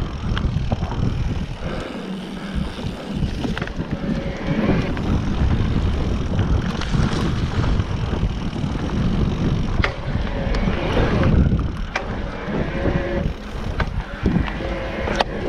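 Mountain bike riding down a dirt trail: wind buffeting the helmet or handlebar microphone over a steady rumble of tyres, with frequent sharp clicks and knocks from the bike rattling over bumps.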